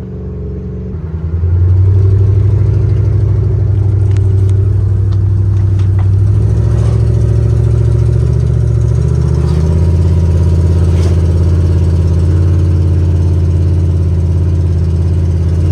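Box truck's engine running loud while driving down the road, its exhaust loud because the catalytic converter was stolen. The engine gets louder about a second and a half in as it pulls, and its note changes pitch twice later on.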